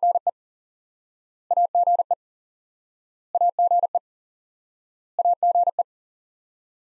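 The abbreviation AGE sent in Morse code at 40 words per minute as a single-pitch tone, keyed four times in quick groups of dits and dahs about two seconds apart.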